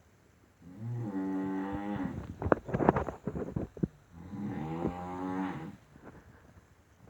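Loud snoring: a long pitched snore, then a crackling, rattling stretch, then a second long pitched snore.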